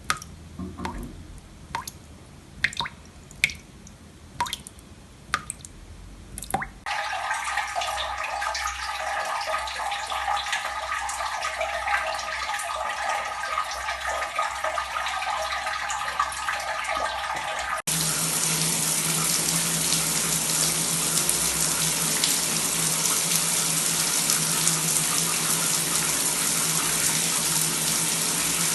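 Water dripping in single drops at uneven intervals, then a steady stream of running water starting about seven seconds in. About eighteen seconds in it switches abruptly to a louder, fuller flow of running water.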